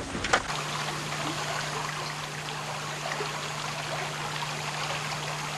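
River water flowing and trickling, a steady rush, with a steady low hum underneath. A few sharp clicks sound at the very start, before the flowing water takes over.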